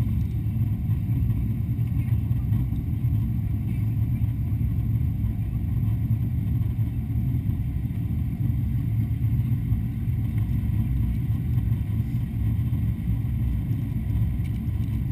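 Steady low rumble inside the cabin of a Boeing 777-200 airliner in flight: engine and airflow noise heard through the fuselage.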